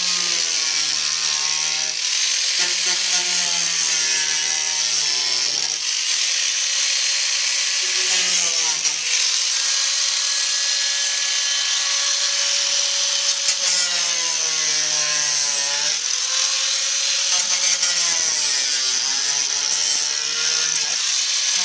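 Handheld power tool cutting through a car's body panel at the wheel well. The motor runs continuously, its pitch sagging several times as the blade bites and then picking back up.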